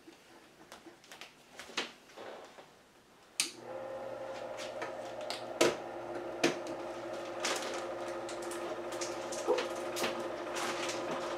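Faint light clicks, then a sharp click about three and a half seconds in as the Pizzazz Plus rotating pizza oven is switched on, and its rotating-tray motor runs with a steady hum, with scattered light clicks and knocks over it.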